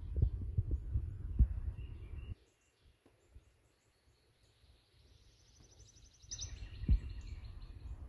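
Low rumbling with repeated dull thumps on the microphone. It drops away for a few seconds, a little over two seconds in, and comes back near the end. Faint forest birds chirp throughout, and one gives a quick, rapidly repeated trill just before the rumble returns.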